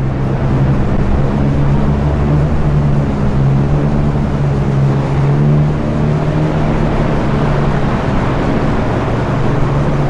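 Boat engine running steadily: a low, even drone with a rush of water and wind over it.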